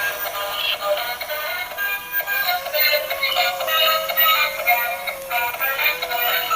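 Electronic music with a synthetic singing voice carrying a melody over a steady held note, with no bass.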